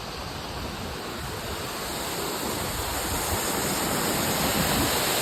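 Steady rush of a waterfall's falling water, a continuous roar of noise that grows gradually louder.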